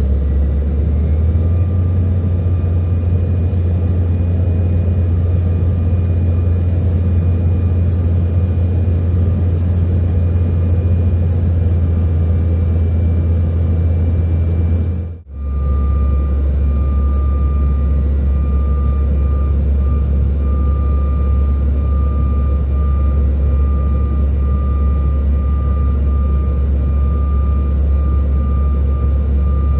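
Steady cabin drone inside a CRJ-700 regional jet descending: the low hum of its rear-mounted GE CF34 turbofans and airflow, with a faint steady whine above it. About halfway the sound drops out for a moment, then resumes with a slightly lower hum and a thin pulsing whine.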